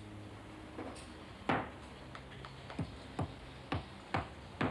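A shoemaker's hammer tapping a leather boot on its last: about seven sharp taps, irregularly spaced.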